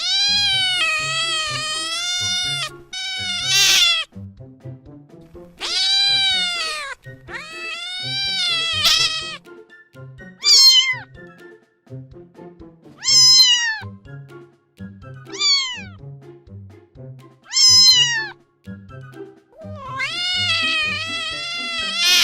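Cats meowing, about nine calls: several long drawn-out meows with a wavering pitch at the start, middle and end, and shorter meows that fall in pitch in between. Soft background music runs underneath.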